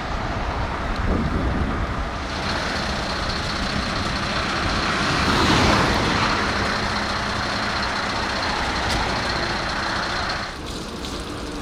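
Fire engines driving past on a motorway: diesel truck engines and tyre noise, swelling as the lead Mercedes-Benz truck comes close, loudest about halfway through, then dropping off sharply near the end.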